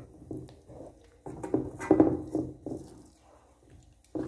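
Wooden spoon stirring a thick, sticky mix of melted glycerin soap and sugar in a nonstick frying pan, with uneven squelching and scraping strokes that are loudest about two seconds in.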